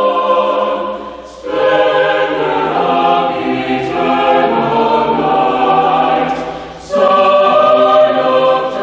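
Mixed chamber choir singing sustained chords, with two short breaks between phrases, about a second and a half in and again near seven seconds, each marked by crisp consonants.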